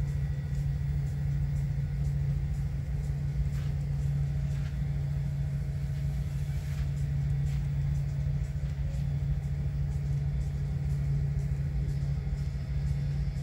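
Digital sound-decoder engine sound of EMD SD40-2 diesel locomotives, played through Rolling Thunder subwoofer speakers: a steady low engine drone with rumble under it, as the locomotives work a heavy coal train up a grade.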